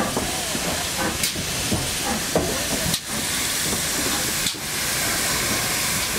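Steady, loud hiss of steam escaping from standing steam tank locomotives.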